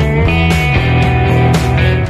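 Background music, with new notes or chords struck about twice a second.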